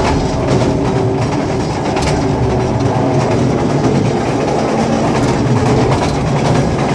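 A small tourist train rolling steadily along its track, heard from aboard: a continuous rumble of the carriage with occasional clicks and clacks from the wheels.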